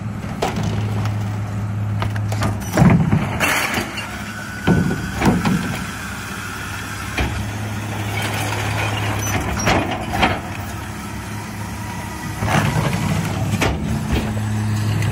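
Diesel engine of a McNeilus split-body rear-loader garbage truck idling with a steady hum. Plastic recycling bins knock and clatter against the hopper as they are tipped and emptied, several times over.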